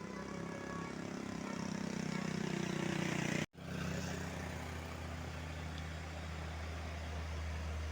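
Bus engine running, growing louder over about three and a half seconds. The sound then cuts out for an instant and returns as a steadier, deeper engine drone.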